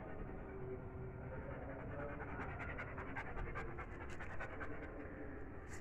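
German shepherd panting steadily with its mouth open, with a run of light clicks from about halfway through.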